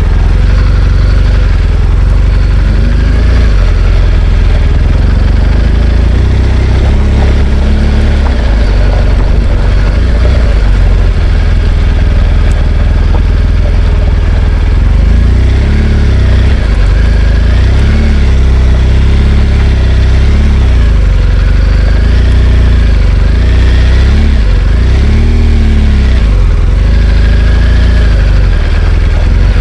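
BMW R1200GS Adventure's boxer-twin engine running under way, its revs rising and falling repeatedly in the second half, over a heavy low rumble of wind on the helmet-mounted camera.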